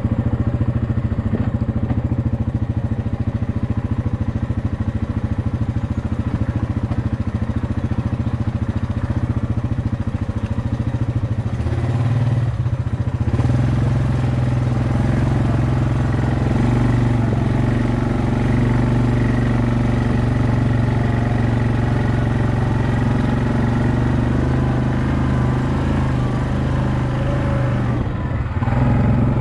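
Yamaha Kodiak 700 ATV's single-cylinder four-stroke engine running steadily under way on a trail, with a brief easing of the throttle about twelve seconds in and again near the end.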